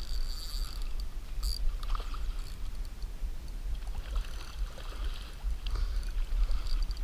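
Wind buffeting the microphone in a steady low rumble, over light splashing of a hooked carp thrashing at the surface as it is netted, with a short sharp click about a second and a half in.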